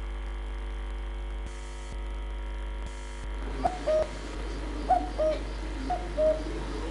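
Steady electrical mains hum with several evenly spaced tones. From about halfway through, short two-note chirps come roughly once a second, each a high note followed by a slightly lower one.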